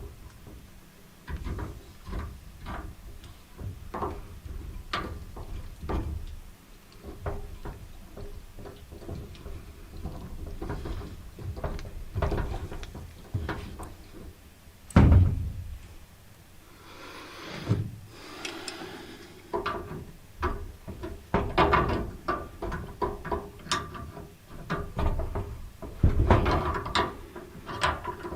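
Scattered clicks, knocks and clatter of hands handling and screwing a garden-hose fitting with its rubber gasket onto a portable propane water heater, with a loud thump about halfway through and a brief hiss shortly after.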